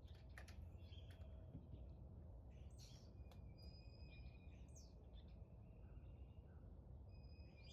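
Near silence with faint birds calling in the background: scattered short chirps and a few longer whistled notes, some about halfway through and again near the end.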